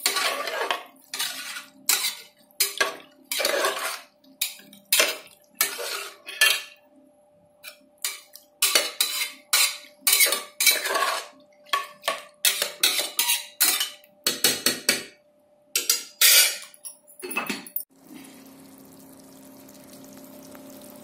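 Steel spoon knocking and scraping against the inside of an aluminium pressure cooker in irregular clatters as boiled country chicken is stirred into the masala. The clattering stops about three seconds before the end, leaving a faint steady hum.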